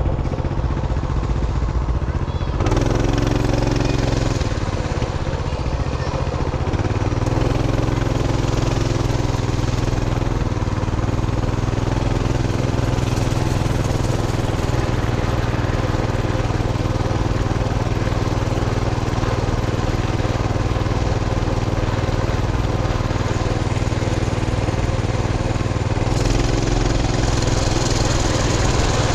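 A small vehicle engine running steadily under way, its pitch stepping to a new level a few times, with wind rushing over the microphone.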